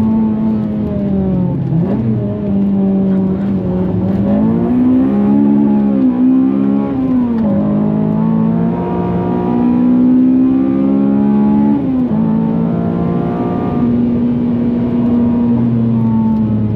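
Honda Civic Type R FN2's K20 four-cylinder engine running at high revs under load. The pitch dips and climbs again several times, briefly about two seconds in, in a quick cluster around the middle and once more near twelve seconds in, as it changes gear.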